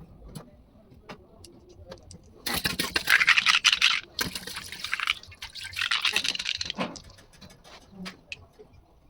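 Injection pump parts being cleaned with liquid: two long, loud bouts of wet scrubbing noise, the first starting about two and a half seconds in, with small clicks of handled parts around them.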